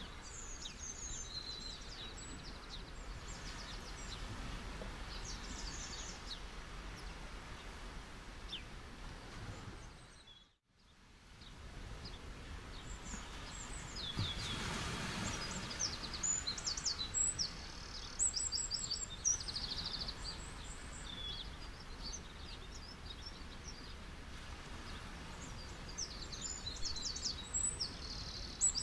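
Many small birds chirping in quick trills over a soft steady hiss. The sound dips out briefly about ten seconds in, then a swell of noise rises and fades again.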